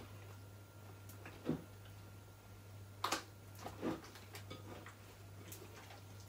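Hands kneading and squeezing gloopy washable-glue slime in a glass bowl. It gives a few scattered wet squelches and knocks, over a faint steady hum.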